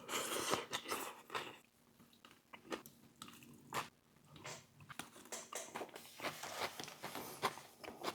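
Close-miked chewing and biting of a Philly cheesesteak sandwich: irregular moist mouth sounds with soft crunches of the toasted roll and vegetables.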